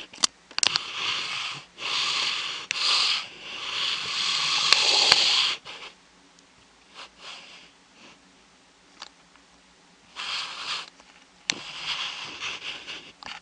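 Broom sweeping: a run of bristly swishing strokes for the first five or so seconds, then quiet, then two shorter bouts of sweeping near the end.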